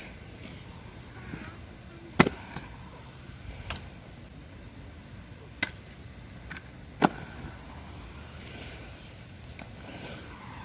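Aggressive inline skates clacking against a hard surface: four sharp knocks a second or two apart, the first and last the loudest, with a few lighter clicks and a low steady rumble underneath.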